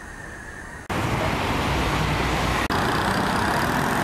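Road traffic on a city street, cars passing. It starts abruptly about a second in and is loud, with a brief break near the middle.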